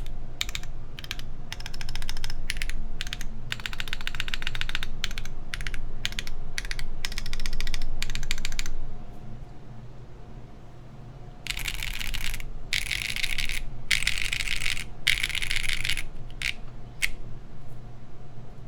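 Typing on a Matrix Lab Magic3 60% HHKB-layout mechanical keyboard with Everfree Grayish tactile switches, an aluminum plate and GMK keycaps: fast runs of key clicks, a pause of a couple of seconds near the middle, then four dense bursts and a few single keystrokes. A steady low fan hum runs underneath.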